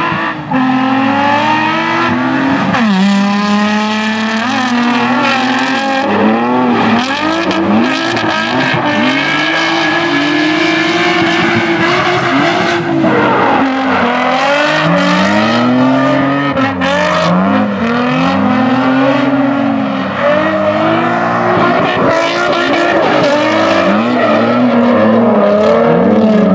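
Two drift cars, a Nissan 350Z and a BMW E36, running in tandem: the engines rev up and drop over and over, about once a second, with tyres squealing. About three seconds in one engine climbs in one long rev as they pull away.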